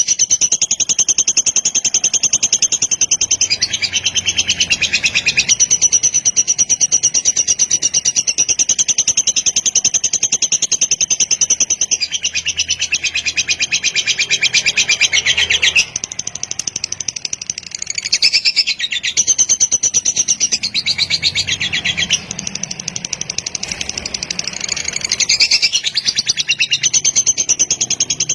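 Lovebird singing its long 'kekek' (ngekek) song: a fast, unbroken, high-pitched chattering trill that runs on for long stretches, with only brief dips about sixteen and twenty-two seconds in.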